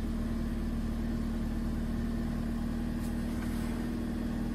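Toyota Yaris engine idling steadily with an even hum, heard from inside the car's cabin.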